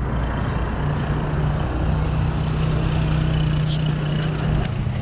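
Road noise of a bicycle ride: wind and road hiss on the camera's microphone, with a steady low engine hum of motor traffic from about a second in until near the end.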